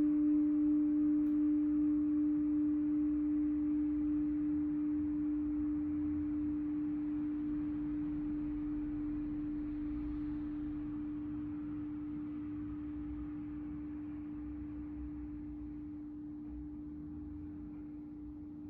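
Singing bowl ringing out after a single strike: one sustained low tone with a faint higher overtone, wavering gently at first and fading slowly away.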